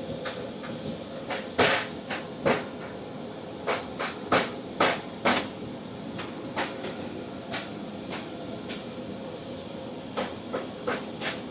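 A series of sharp, irregular knocks and clacks, about fifteen of them, the loudest a little over a second and a half in, over a steady hum.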